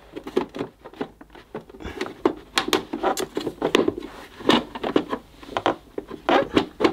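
Plastic casing of a Hoover Compact Deluxe cylinder vacuum being handled and pressed back into place: a run of irregular sharp clicks, knocks and rubbing as the grille cover is angled to hook under a lip.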